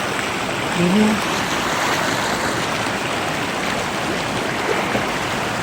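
River water flowing steadily, an even rushing. A short low call, rising in pitch, comes about a second in.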